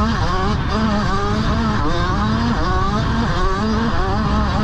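Motocross bike engine at race pace, its pitch climbing and dropping back several times as the throttle is worked and gears change, with wind rumble on the microphone.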